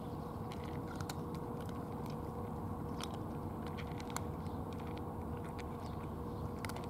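Two cats crunching dry kibble from plastic bowls, heard as small irregular crunching clicks. Under it runs a steady low rumble and a faint steady hum.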